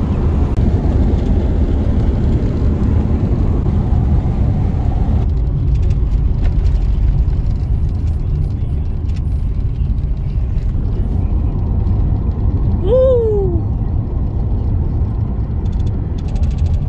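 Car driving along a road, heard from inside: a steady low rumble of engine and tyre noise. About thirteen seconds in, a short falling pitched sound cuts through.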